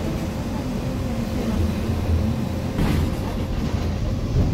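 Inside a Volvo B8RLE city bus under way: a steady low rumble of the rear-mounted diesel engine with road and tyre noise. A brief clatter comes a little under three seconds in.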